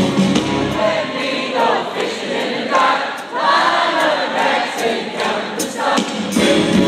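Many voices singing a cappella, the bass and drums dropping out about a second in and the full band coming back in near the end.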